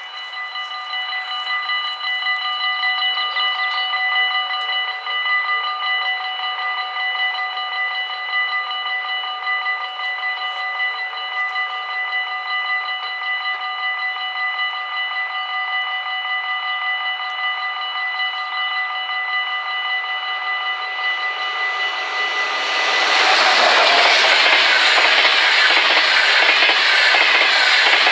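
The two warning bells of a Dutch mini-AHOB level crossing ring steadily. About twenty-three seconds in, the IC Berlin passenger train passes with loud, rolling wheel-on-rail noise that drowns the bells.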